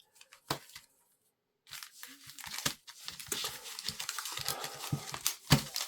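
Foil Pokémon booster pack wrappers crinkling as they are handled, with a single click about half a second in and steady crackling from under two seconds in.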